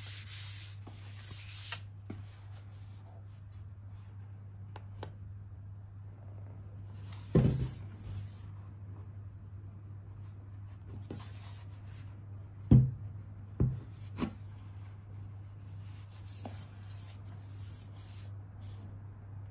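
Hands handling an aluminium MacBook Air laptop, fingers rubbing and sliding over its metal lid and base as it is turned over, over a steady low hum. A few knocks break in, one about seven seconds in and the loudest about thirteen seconds in, followed by two lighter ones.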